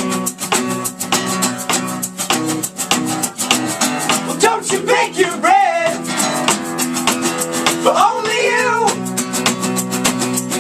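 Live band music: guitar strummed in a fast, even rhythm, with a singer's voice coming in for two short phrases, about halfway through and again near the end.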